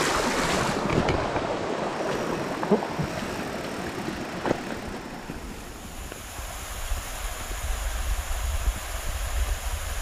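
River water rushing steadily over rocks, fading out after about five seconds. Wind then rumbles on the microphone.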